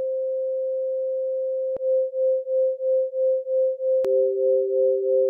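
Electronic sine tones, colour turned into sound notes: a single pure tone held steadily, then pulsing about four times a second after a click near two seconds in. About four seconds in, a second click brings in a lower steady tone alongside it, so two notes sound together.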